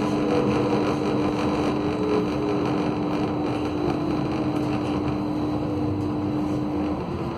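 Tram running: a steady rumble with a held humming tone that stops near the end.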